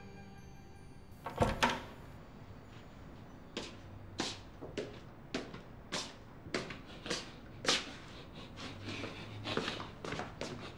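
A single thump about a second and a half in, then slippered footsteps on a wooden floor, about two steps a second.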